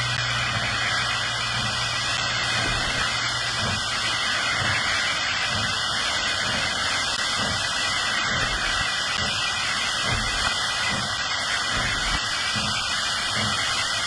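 Southern Pacific 4449 steam locomotive approaching slowly, steam hissing steadily, with slow low exhaust chuffs about two a second. A low steady hum fades out in the first few seconds.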